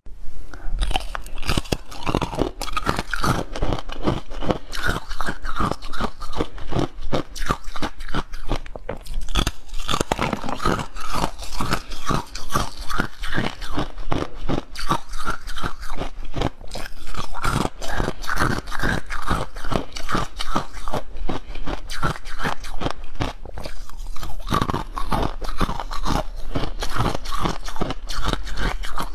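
Ice being bitten and chewed close to the microphone: a dense, continuous run of crunches.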